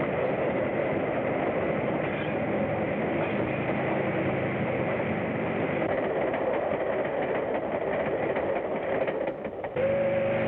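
Train running at speed, a steady rushing rumble with a pitched ring on top, heard on an old soundtrack with a dull, narrow range. Near the end the rumble dips briefly and a long, held horn- or whistle-like note begins.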